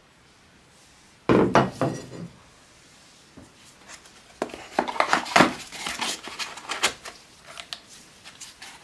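Hard objects handled on a wooden workbench: a sudden clatter of metal about a second in, then a quick run of knocks and taps, thinning to a few light taps near the end.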